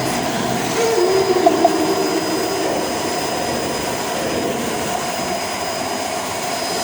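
Vacuum cleaner running steadily, with a brief tone in its hum a second or two in.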